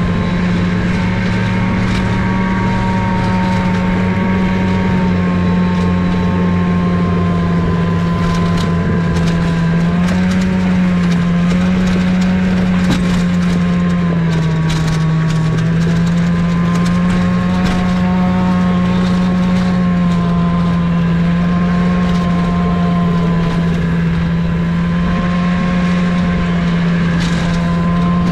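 Polaris snowmobile engine running at a steady cruising pace, its pitch dipping and rising slightly about halfway through, with scattered knocks and rattles from the towed sled.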